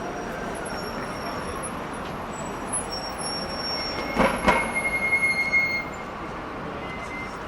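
Busy city street ambience: steady traffic noise, with a vehicle passing about four seconds in that gives a high metallic squeal and a short burst of clatter.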